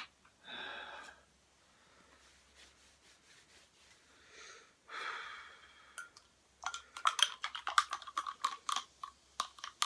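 A couple of heavy breaths, then from about two-thirds of the way in a quick run of sharp clinks: a metal spoon striking the inside of a drinking glass as a drink is stirred.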